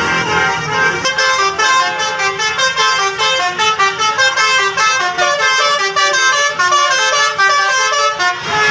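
Bus telolet horn, a multi-tone musical horn, playing a fast tune of short notes that step up and down in pitch.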